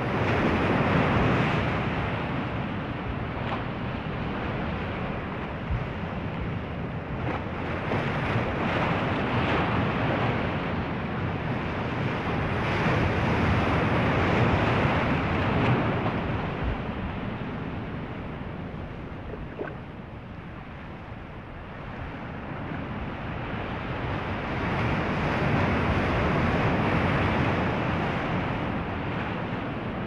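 Ocean surf: waves breaking and washing ashore as a continuous rushing noise that swells and ebbs over several seconds. It is loudest near the start, in the middle and again near the end, with a quieter lull a little past two-thirds of the way through.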